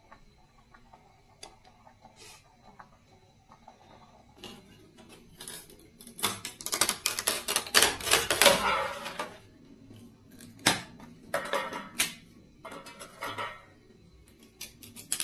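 Rapid clicking and clattering of small hard objects being handled. It is faint and sparse at first, densest and loudest from about six to nine seconds in, then comes in shorter bursts.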